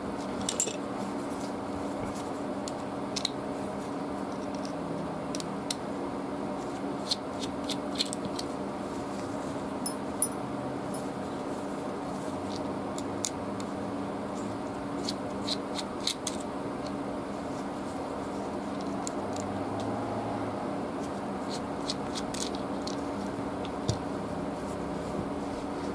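Small, sharp metal clicks and light taps at irregular intervals as a folding knife's parts and tiny screws are handled during disassembly, over a steady low background hum.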